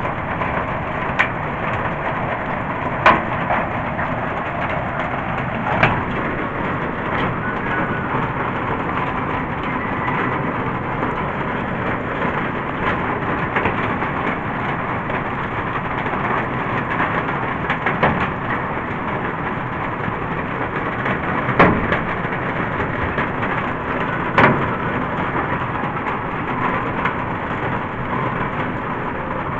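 Hailstorm: a steady hiss of hail falling on a tiled roof and grass, with a sharp knock every few seconds as a larger stone strikes something hard.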